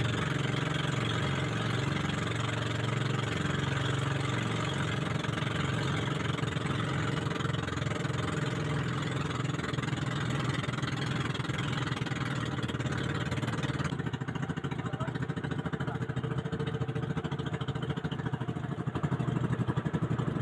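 Small wooden motorboat's engine running steadily, with water rushing past the hull. About two-thirds of the way through, the higher hiss drops away while the engine keeps running.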